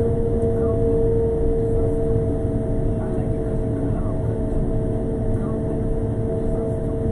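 Road sweeper running as it drives along the street: a steady low engine and machinery rumble with a steady whine held on top.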